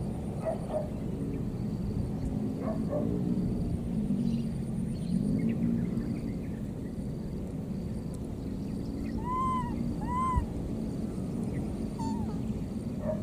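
A steady low rumble, like an engine running, with two short rising-and-falling calls from a baby monkey about two-thirds through and a few faint chirps.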